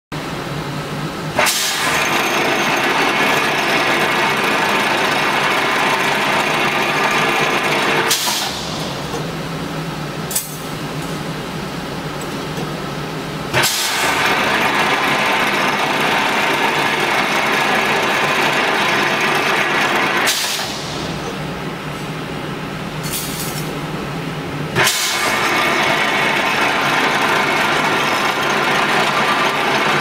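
An automatic wire fan-guard edge-trimming machine working in repeated cycles. Each working pass starts with a sharp clack and runs loud and steady for about seven seconds, then drops to a few quieter seconds with single clicks before the next pass. Three passes come about eleven seconds apart.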